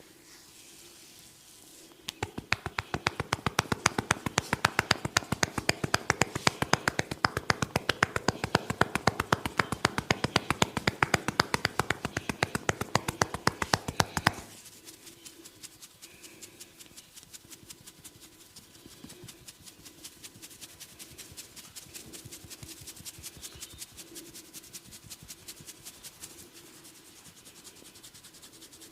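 Massage tapotement: a barber's hands slapping and chopping rapidly on a person's neck and shoulders, a fast, even patter of sharp strikes that starts about two seconds in. About halfway through the strikes stop suddenly and give way to a much softer, lighter tapping.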